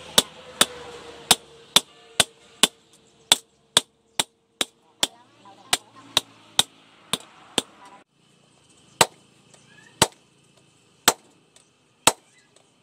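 Hand hammer striking a steel knife blank on a steel post anvil: sharp metallic blows about two a second, then after a break about eight seconds in, slower blows about one a second on the red-hot blade.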